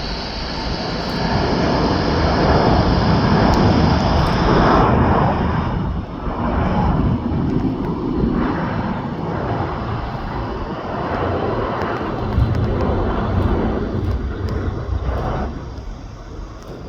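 Jet airliner's engines passing close by on the runway: a loud rushing noise with a high whine that cuts out about five seconds in, then a rumble that slowly fades.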